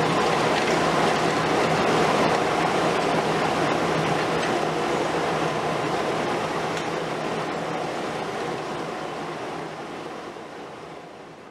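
Liebherr R 950 Demolition long-front excavator at work: the engine runs with a steady low hum under a dense rumble of concrete and rubble breaking and falling, with occasional faint knocks. The noise fades out over the last few seconds.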